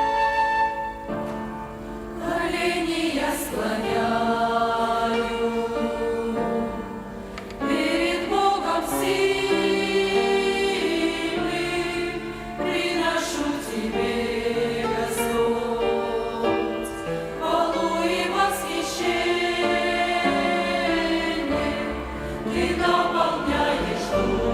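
Mixed church choir singing a slow hymn, accompanied by a violin ensemble.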